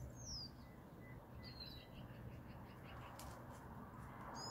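Faint bird chirps: a few short, high notes that slide downward, about a second and a half apart and again near the end, over quiet outdoor background.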